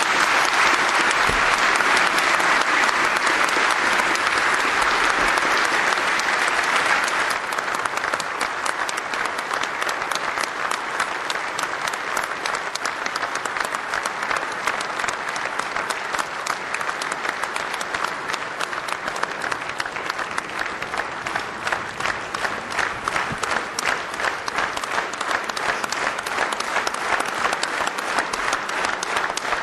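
A large audience applauding at length, a dense sustained clapping that is loudest for the first seven seconds or so, then eases slightly with individual claps standing out.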